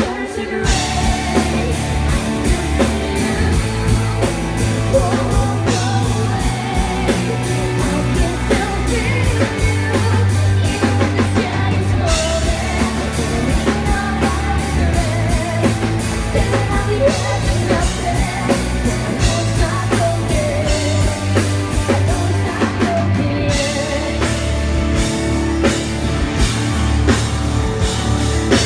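Live rock band playing loudly, with a woman singing lead into a microphone over a drum kit and electric guitars, heard from the audience.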